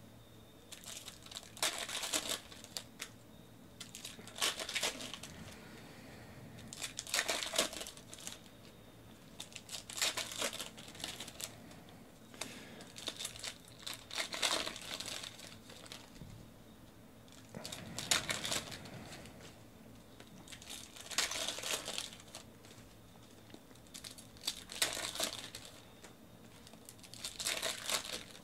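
Foil trading-card pack wrappers crinkling and being torn open by hand: short rustling, ripping bursts every two to three seconds.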